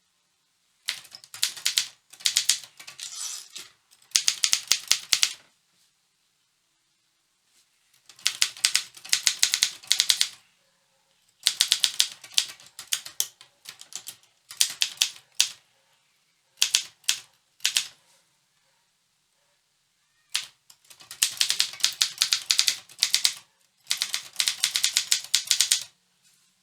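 Optima Elite-3 manual typewriter being typed on: fast runs of key strikes, each a second or two long, broken by short pauses.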